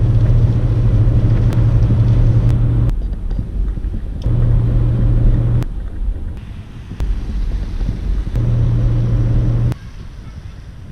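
Road noise inside a moving car: a steady low drone of engine and tyres at speed. It is cut into short pieces, so the drone drops away and comes back several times, and it gives way to quieter noise near the end.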